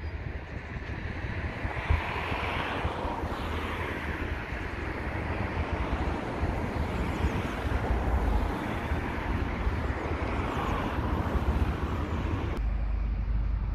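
Road traffic passing, its tyre noise swelling and fading as vehicles go by, with wind rumbling on the microphone.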